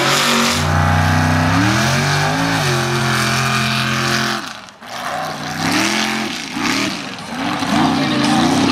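Mud-racing trucks' engines running hard at full throttle. The first engine holds a steady pitch and steps through gear changes; after a brief break about four and a half seconds in, a second engine revs up and down repeatedly as it powers through the dirt.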